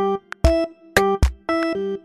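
Background music: bright synthesizer notes over a steady drum beat.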